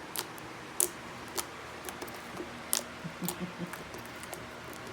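Slime being squeezed and poked for ASMR close to the microphone: a few sharp clicks and pops, then a short run of softer squelches a little past three seconds.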